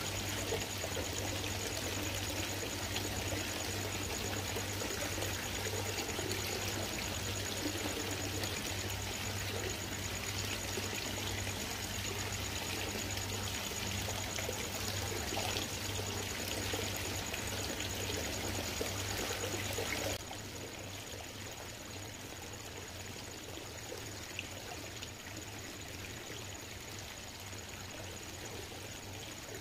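Koi pond's circulating water trickling steadily, with a low steady hum underneath. The sound gets quieter about two-thirds of the way through.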